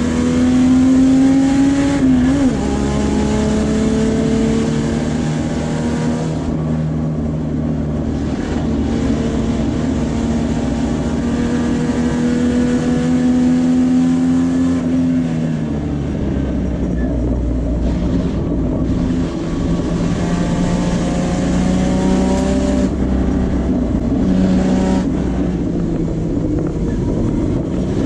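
Puma GTB race car's Chevrolet straight-six heard from inside the cockpit at full throttle: it upshifts about two seconds in, then climbs slowly in pitch down a straight. About halfway through it drops off as the car brakes and downshifts, then pulls again through the following corners, over steady road and wind noise.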